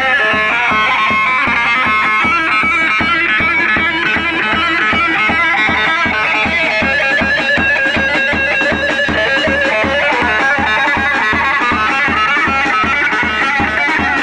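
Loud wedding dance music for a line dance: a high melody line over a steady, evenly spaced drum beat.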